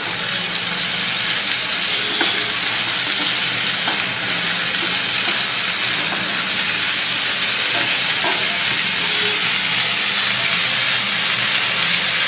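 Sliced bitter gourd, onion and green chillies sizzling steadily in hot oil in a pan. They are being stirred and mixed, with a few faint scrapes.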